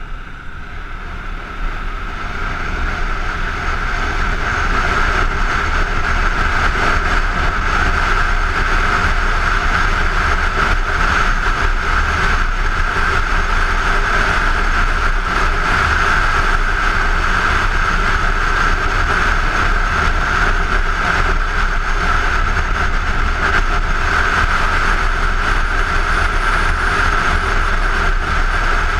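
Kawasaki Ninja 250 motorcycle riding at speed, heard from a helmet-mounted camera: heavy wind rush over the helmet with the parallel-twin engine running underneath. It grows louder over the first few seconds as the bike picks up speed, then stays steady.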